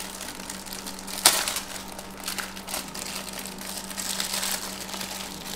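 Clear plastic bag around a plastic model kit's parts sprues crinkling as hands tear it open, with one sharp snap about a second in. A faint steady low hum lies underneath.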